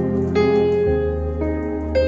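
Slow, soft keyboard music: sustained electric-piano or pad chords over a held bass, with new notes entering about every half second.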